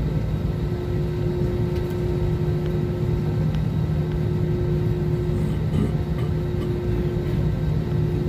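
Airliner cabin noise: a steady low rumble of the jet engines and airflow, with a constant droning hum.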